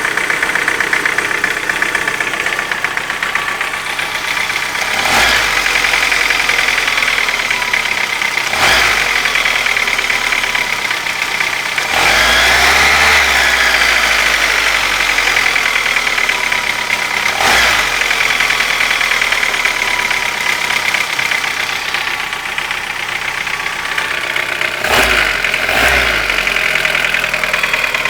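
Car engine running warm with a light, rapid tapping from the valvetrain, revved briefly several times. The owner says the tapping started after the hydraulic lifters were replaced and is absent when the engine is cold.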